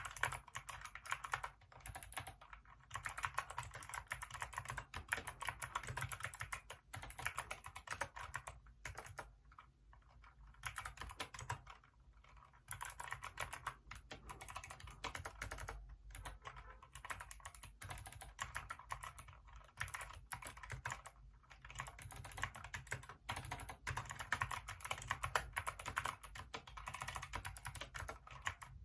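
Continuous fast typing on a Hacker K611 mechanical keyboard with Kailh optical switches: a dense run of key clacks, broken by a few brief pauses of about a second.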